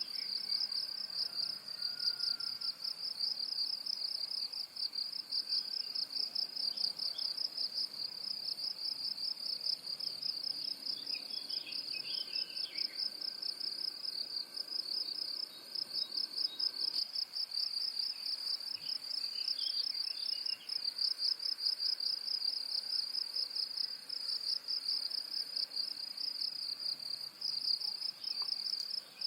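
Dense, steady chirping of insects in rapid, even pulses, with a few faint bird chirps now and then.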